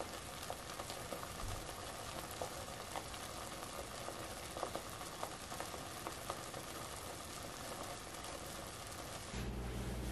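Thick homemade toffee mixture bubbling and sizzling in a stainless-steel saucepan, a steady hiss with scattered small pops of bursting bubbles. Near the end it cuts off and a steady low hum takes over.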